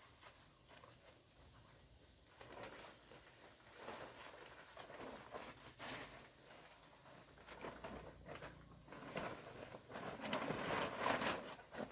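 Faint, steady high insect buzz, like crickets, under irregular rustling and scuffing sounds that grow louder near the end.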